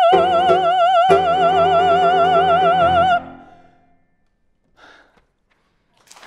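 A female opera singer holds the final high note of an English-language aria on the word "home", with wide vibrato over sustained piano chords, and both stop about three seconds in. Applause starts near the end.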